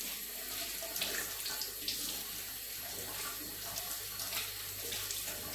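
Kitchen tap running onto chainsaw chains held under it, water splashing into a stainless steel sink as the chains are rinsed. The hiss of the water is steady, with a few faint light clicks now and then.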